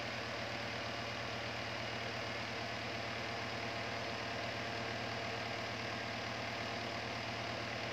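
Small plastic desk fan running steadily: an even whir of air and blades over a low, constant motor hum, with no change in speed.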